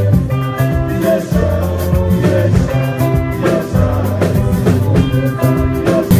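Live twarab band music through a PA: men singing over amplified instruments, a strong bass line and drums keeping a steady beat.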